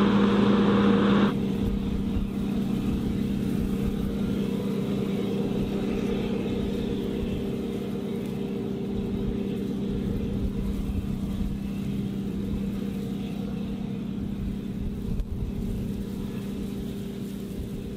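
Farm machinery running with a steady, even-pitched drone. About a second in the level drops sharply, and the drone then fades slowly.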